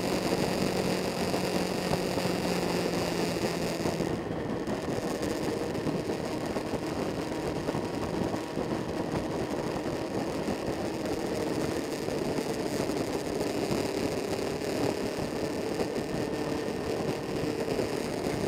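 Motorcycle engine running at cruising speed over wind and road noise. About four seconds in the engine note changes, and near the end it rises slowly as the bike picks up speed.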